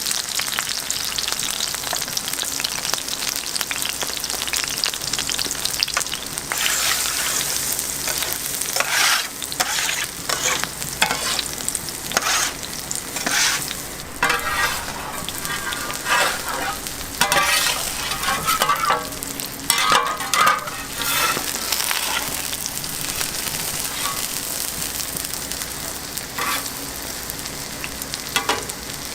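Green onion pancake (pajeon) frying in oil on a hot griddle, sizzling steadily. From about six seconds in until about twenty-two seconds there is a run of short, sharp clatters over the sizzle.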